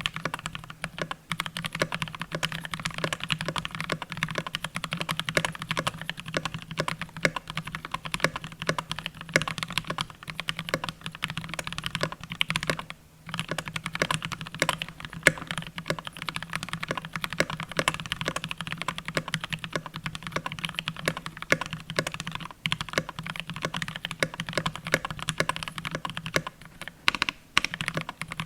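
Continuous fast typing on a GMMK Pro mechanical keyboard fitted with lubed and filmed JWK Mauve linear switches, a dense run of keystrokes with one brief pause about halfway through.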